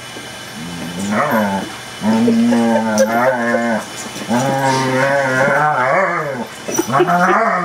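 Adult German Shepherd giving deep, drawn-out moaning growls in play: a series of long, wavering calls of a second or two each, starting about a second in.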